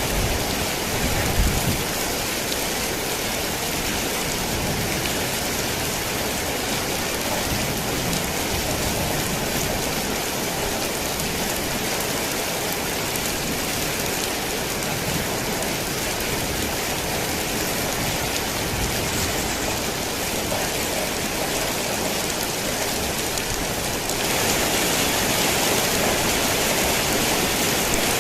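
Heavy rain falling on a tin roof, a dense steady hiss of drops. There is a brief low thud about a second and a half in, and the rain gets louder about four seconds before the end.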